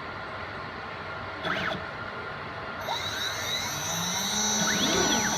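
DIY CNC router: its stepper motors whine in pitch sweeps that rise and fall as the axes accelerate and slow. About three seconds in, a high steady whine comes in and grows louder, the router spindle running up toward 18,000 RPM.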